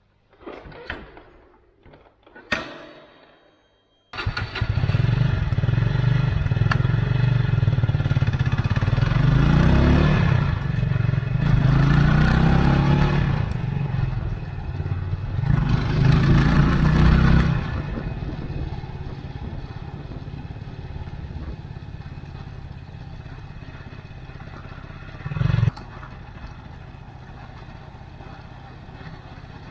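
Benelli Leoncino 250 motorcycle's single-cylinder engine coming in suddenly about four seconds in and revved up three times, then settling to a quieter steady idle. There is a single thump near the end.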